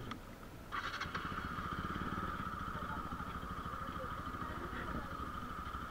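Motorcycle engine idling steadily, with a steady high whine joining in just under a second in.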